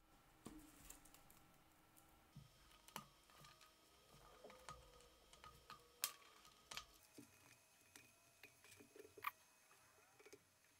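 Faint, irregular clicks and taps of jumper wires, header pins and a DC barrel-jack lead being handled and set down on a wooden desk while a breadboard circuit is wired up.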